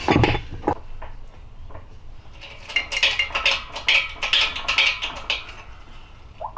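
Metal clinking and clattering as a three-jaw gear puller and its centre bolt are worked on a transmission countershaft. A few loud knocks come at the start, then a quick run of sharp clicks in the middle.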